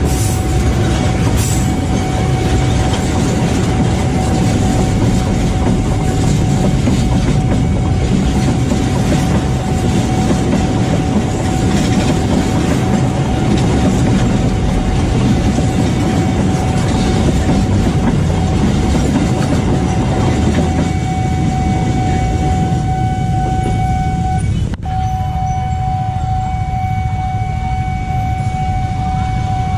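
Freight train wagons rolling past close by, a heavy continuous rumble of wheels on rail, with a level-crossing alarm sounding one steady high tone. About 25 seconds in, the rumble drops suddenly to a lighter, more distant train noise while the alarm tone carries on.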